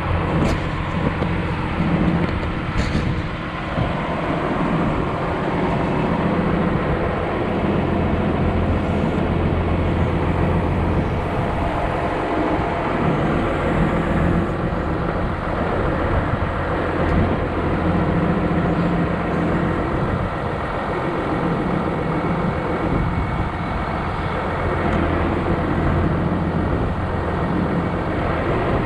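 John Deere 710D backhoe's diesel engine running steadily. A second tone in its note comes and goes every few seconds as the backhoe is worked.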